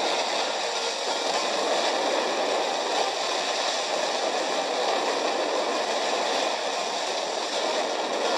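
Fireworks display going off in a dense, steady barrage, heard as an even rushing noise without separate bangs standing out.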